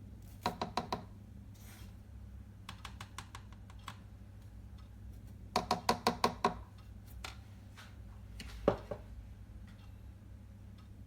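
Short runs of quick light clicking taps: a burst of about five, some fainter scattered ticks, a louder run of about seven, then a single knock.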